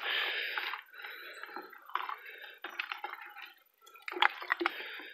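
Mason's trowel stirring watery cow-manure slurry in a plastic tub: wet sloshing and splashing as the manure is diluted in water, with a few sharp clicks about four seconds in.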